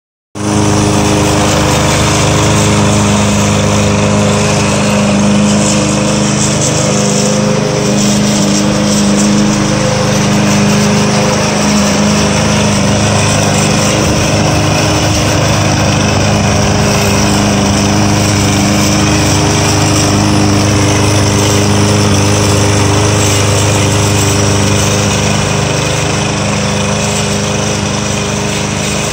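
Walk-behind gas push mower's small engine running steadily while it cuts grass. It is a little fainter near the end as the mower moves away.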